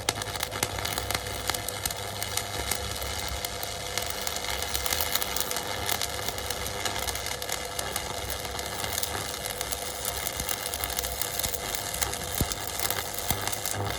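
Stick arc welding with a homemade 110-volt DC welder: the arc crackles and sizzles steadily as a butt weld is run between two flat plates, with a steady hum underneath.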